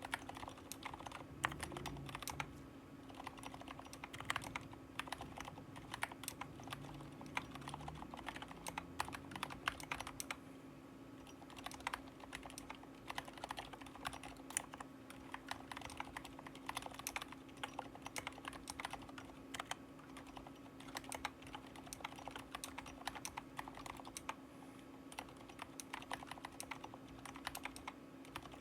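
Steady typing on a Drop CTRL high-profile mechanical keyboard with 65 g Aliaz silent tactile switches lubed with Krytox 205: soft, muted keystrokes in quick irregular runs, with a steady low hum underneath.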